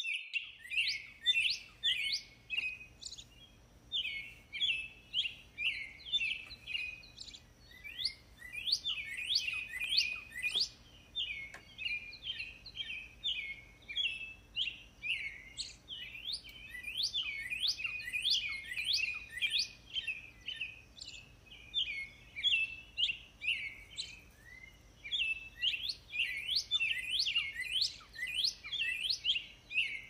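Songbirds chirping in a dense, continuous chorus of quick, sweeping high notes that overlap one another, thinning briefly about three-quarters of the way through.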